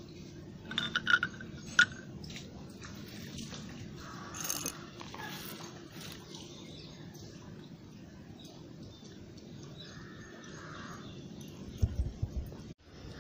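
Steady background noise with a few short clicks and taps from the burnt circuit boards of a mobile phone charger being handled by hand. There are clicks about a second in and a few knocks near the end.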